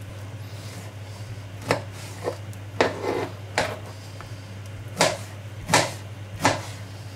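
Kitchen knife cutting through mango flesh and knocking on a plastic cutting board: about eight sharp, irregular knocks, spaced roughly half a second to a second apart. A low steady hum sits underneath.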